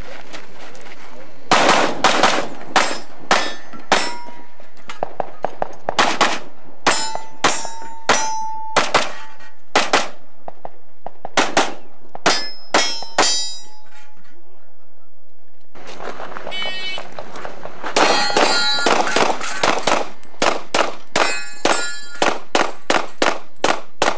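Handgun fired in rapid strings, with steel targets clanging and ringing briefly when hit. About twenty-five shots come in an uneven run over the first dozen seconds, then after a pause of a couple of seconds a faster string of about three shots a second runs on to the end.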